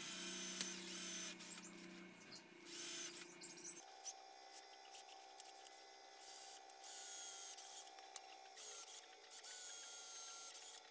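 Bonkyo 21V cordless drill boring into a wooden plank. The motor runs in several bursts, loudest in the first few seconds, then continues more quietly with a change in pitch.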